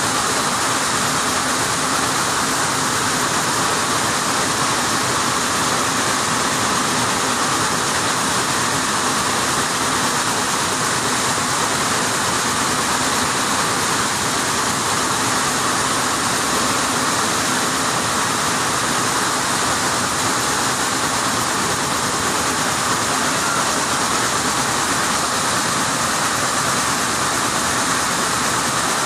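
Weaving looms running in a weaving shed: a loud, steady, dense mechanical noise that does not let up.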